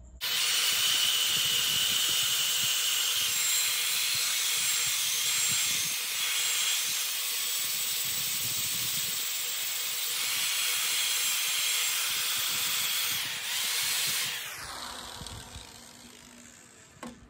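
Power sanding an ash bowl: a scalloped sanding disc hissing steadily against the spinning wood. About fourteen seconds in, the hiss stops and a motor winds down with a falling whine.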